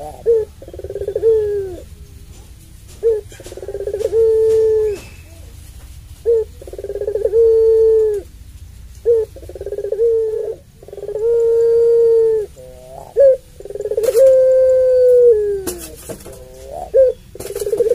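Puter pelung, a domestic ringneck (Barbary) dove kept for its long call, cooing over and over: a short note, then a long drawn-out coo that falls away at the end. The pair repeats roughly every three seconds.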